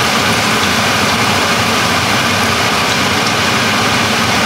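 Steady, loud rush of the deep fryer's blower running, with hot grease sizzling around burgers being lowered slowly into it.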